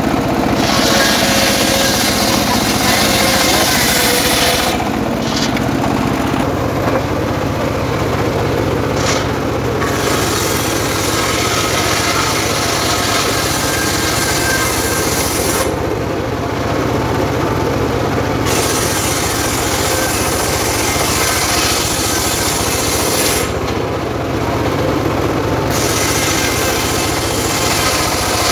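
Homemade bench circular saw ripping long wooden planks lengthwise: a steady machine drone with the blade's high cutting hiss over it. The cutting hiss drops away briefly about 5, 16 and 24 seconds in, leaving only the drone.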